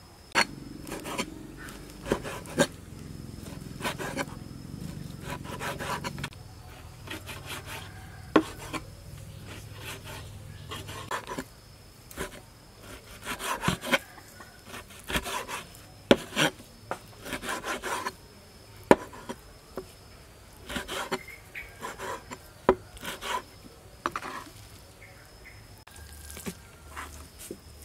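Kitchen knife slicing raw beef on a wooden cutting board: irregular sharp taps and scrapes of the blade against the board. Insects can be heard faintly and steadily in the background.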